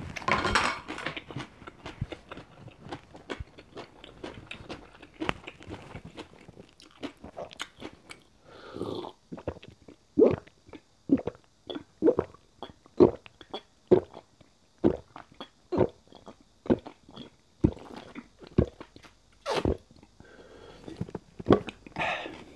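A person gulping water from a small plastic bottle, swallowing about once a second for roughly ten gulps, close to a clip-on microphone. Before the drinking there are light knocks and handling sounds.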